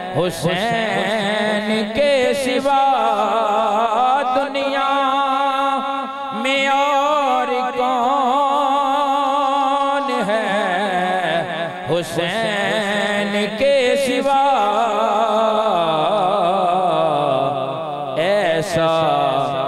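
A man's voice chanting a line of Urdu devotional verse slowly into a microphone: he sings the word "Hussain" near the start, then draws it out in a long melismatic run with a wavering vibrato.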